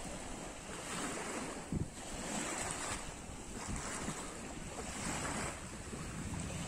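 Small waves lapping in shallow water on a sandy beach, swelling and fading in repeated washes about every second or so, with wind buffeting the microphone.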